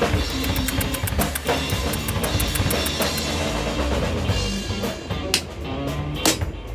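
Background rock music with a drum kit keeping a steady beat.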